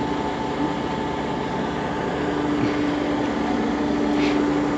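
Peterbilt 389 dump truck's diesel engine running steadily, with a steady whine over it that grows a little louder toward the end.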